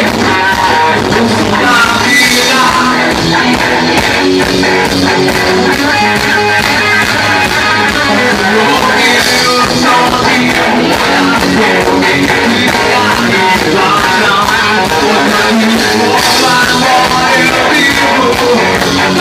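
Live band playing a loud, upbeat gospel axé/rock song with electric guitar, drums and a singer.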